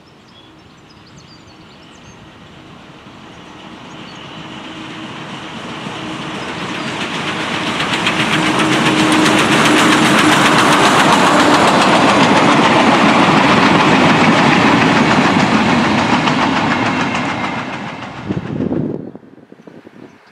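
Train with the 140C38 steam locomotive, old carriages and a diesel locomotive passing close by, its wheels clattering on the rails. The sound builds up as it approaches, is loudest in the middle, fades, then breaks off suddenly near the end.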